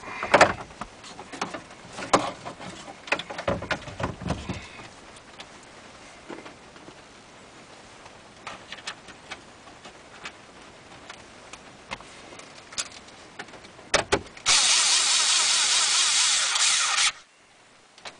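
Plastic clicks and knocks from a replacement factory navigation radio unit being fitted and pushed into a truck's dash opening. Near the end comes a loud steady noise for about two and a half seconds that cuts off suddenly.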